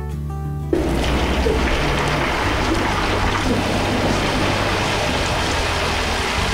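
Leftover boiled soba noodles sizzling and crackling as they deep-fry in oil heated to 150–160 °C. The sizzle starts suddenly a little under a second in and then runs on evenly.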